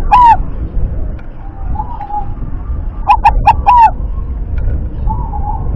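Caged zebra dove (perkutut) singing its clipped cooing song: the last note of a phrase right at the start, a faint coo about two seconds in, then a quick phrase of four short coos about three seconds in.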